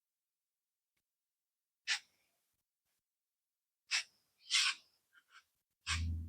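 Near silence broken by four short breaths close to the microphone, the last near the end carrying a low hum under it.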